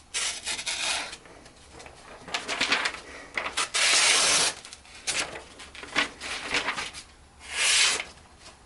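A freshly sharpened stainless steel folding knife slicing through paper in a paper sharpness test. It makes a series of separate slicing strokes, the longest about four seconds in and another near the end.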